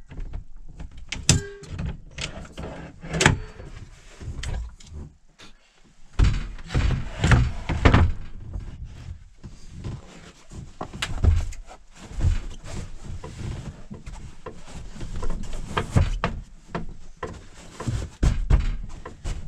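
Dinette being converted into a bed: the table top and its metal leg knocked and clunked into place, then foam seat cushions shuffled and dropped onto it, giving irregular thuds, knocks and rustling.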